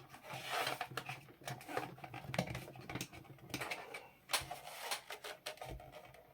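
Hands handling the plastic casing of an Xbox Series S console: irregular scrapes, taps and clicks of fingers and plastic as a panel is pried at.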